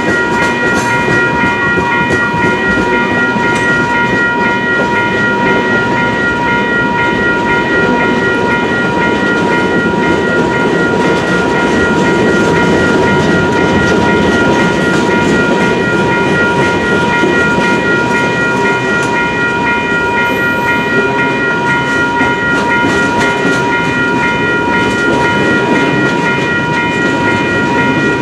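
WCH Type 2 electronic crossing bells ringing continuously with a fast repeating strike, over the steady rolling noise of a freight train's cars passing over the crossing.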